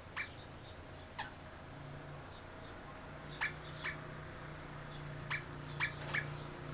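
Eastern rosella giving short, sharp calls, about seven spread unevenly, some sliding down in pitch, over a faint steady low hum.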